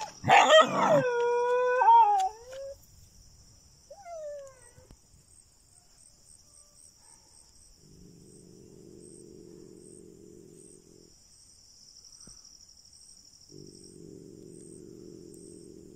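Animals fighting: a loud scuffling burst, then a long wailing cry that drops in pitch at its end, and a shorter falling cry about four seconds in. Later come two low, rough, rasping sounds of about three seconds each.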